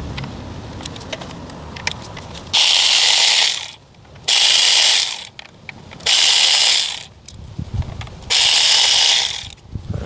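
Ratchet wrench clicking as it backs out four 10 mm ignition-coil hold-down bolts, one bolt per burst: four bursts of fast ratcheting, each about a second long.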